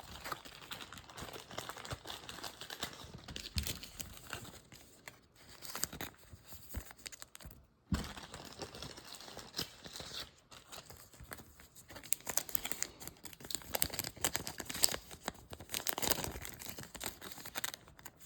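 Plastic card sleeves crinkling as trading cards are handled and slid into them, with scattered small clicks and rustles.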